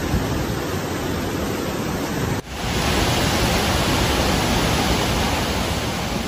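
Steady rushing of fast-flowing floodwater. About two and a half seconds in, a sudden cut leads to a slightly louder, brighter stretch of the same rushing sound.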